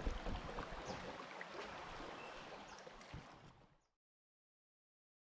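Water ambience, with splashing and small knocks, fades out about four seconds in to dead silence.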